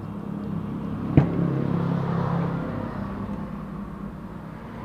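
A single sharp click about a second in, a wire connector snapping onto the welding inverter's circuit board, over the steady low rumble of a vehicle engine.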